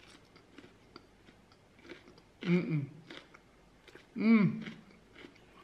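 A person chewing a mouthful of salad greens with the mouth closed: soft, irregular crunching ticks. Twice, about two and a half and four seconds in, she makes a short 'mm' sound through the mouthful.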